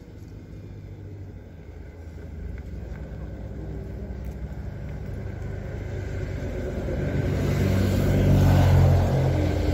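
A passing motor vehicle: a low engine and road rumble that builds steadily over several seconds to a loud peak near the end as it draws close.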